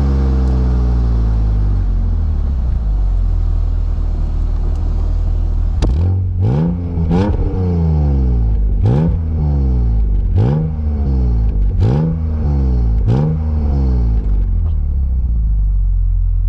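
BMW M Roadster's S52 inline-six exhaust, heard right at the twin tailpipes. The engine note falls as the revs drop and settles to a steady low rumble. About halfway through come six quick throttle blips, roughly one every second and a half, each rising sharply and falling back, before the note settles again.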